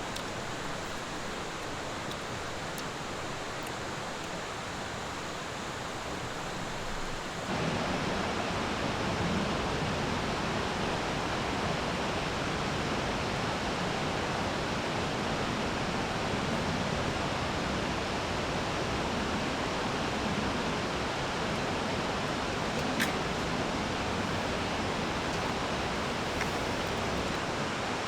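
Mountain valley stream rushing steadily over rocks. It jumps abruptly louder and fuller about seven and a half seconds in.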